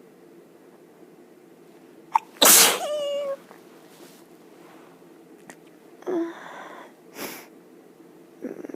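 A person sneezes once, loudly and suddenly, after a quick sharp breath in, and the sneeze ends in a short voiced tail. Several seconds later come quieter breathy sounds and a brief sniff-like burst.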